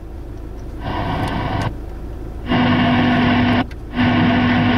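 VW RCD 300 car radio tuned to the AM band, playing static hiss from its speakers in three bursts with brief silent gaps between them as it switches and seeks stations. The last two bursts carry a steady low hum tone.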